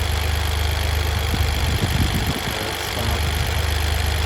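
2023 Toyota GR Corolla's turbocharged 1.6-litre three-cylinder engine idling, about halfway warmed up, with an extra ticking from low down in the engine compartment whose cause the owner can't place.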